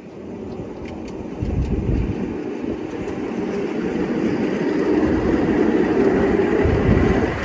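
5-inch gauge ride-on miniature train running along the track, a steady rumble that grows louder over the first few seconds as it approaches.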